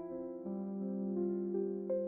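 Background music: slow, soft piano or electric piano playing sustained notes and chords.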